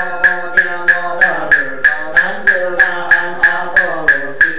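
Buddhist chanting kept in time by a wooden fish (muyu) struck steadily, about three knocks a second, with the chanting voice carried under the knocks.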